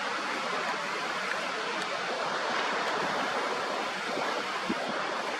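Ocean surf washing on the shore, a steady hiss that swells a little in the middle.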